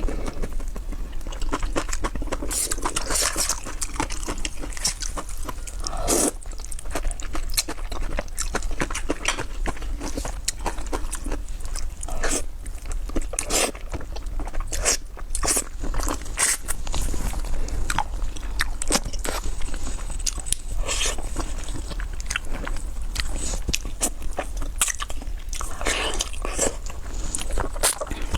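Close-miked chewing and biting of kimchi noodles: crisp crunches and wet mouth clicks coming at an irregular pace.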